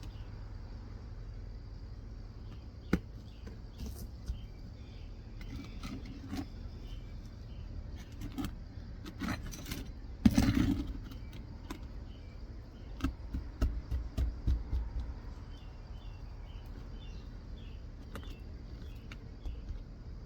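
Roof snake, a flat steel nail-removal bar, being worked under 3-tab asphalt shingles to pull roofing nails: scattered clicks and scrapes, a sharper jolt about halfway through, then a run of quick knocks a few seconds later.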